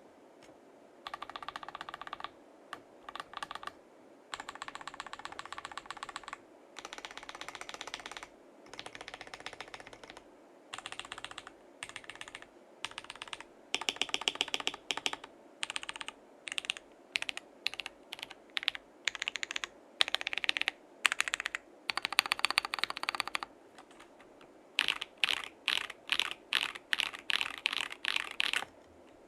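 Mechanical keyboard typing on stock, unlubed Akko CS Lavender Purple tactile switches in a gasket-mounted KBD67 Lite keyboard with a polycarbonate plate and case dampening. Fast runs of keystrokes come in bursts a second or few long, with short pauses between them.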